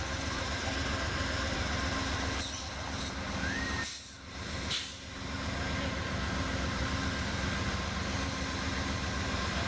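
Diesel passenger locomotive idling at the platform: a steady engine hum with constant tones. The sound dips briefly about four seconds in, with a few short knocks around it.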